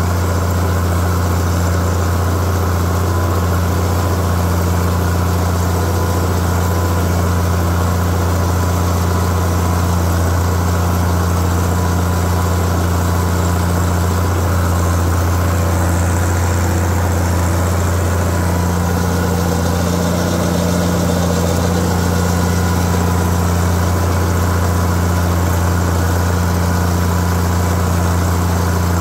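Case tractor's engine running steadily as it pulls a four-bottom moldboard plow through the field, a constant low drone under plowing load.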